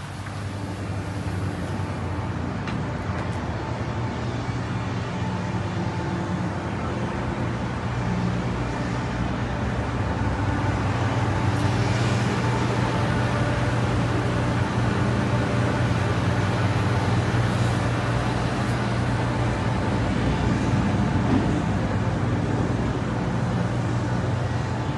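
Steady outdoor city noise heard high up from a tower balcony: a wash of distant traffic with a low steady hum under it. It jumps up at the start and grows a little louder over the first dozen seconds.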